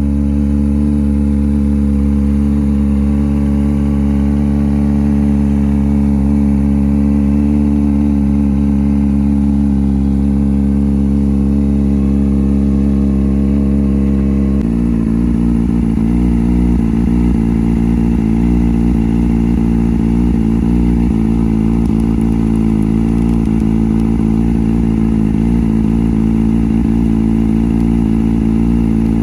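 Kawasaki Ninja ZX-25R's 249 cc inline-four engine idling steadily. Its sound changes abruptly about halfway through, then holds steady again.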